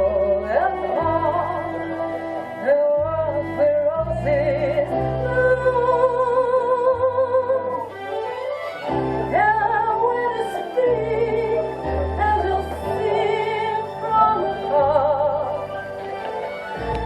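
Music: a singing voice holding long notes with a wide vibrato over slow, sustained bass notes.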